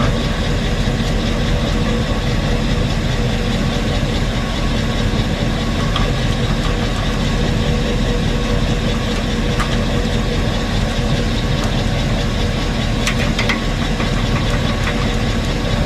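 An engine idling steadily, with a few faint clicks partway through.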